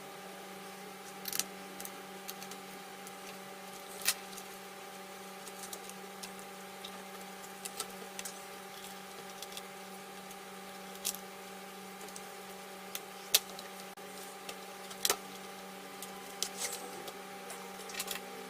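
Scattered sharp clicks and taps of small laptop parts being handled during disassembly, irregular and a few seconds apart, over a steady low hum.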